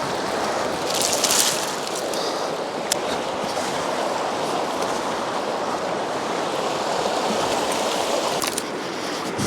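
Mountain river rushing steadily, with a brief rustle about a second in and a few sharp clicks.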